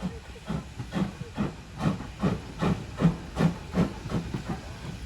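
Steam engine exhaust chuffing in a steady rhythm, about two and a half beats a second, loudest in the middle and fading near the end.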